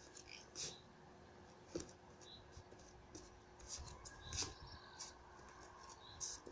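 Quiet, with faint scattered scuffs and rustles from bare feet shifting on foam mats and loose clothing moving. The clearest is a soft knock about four and a half seconds in.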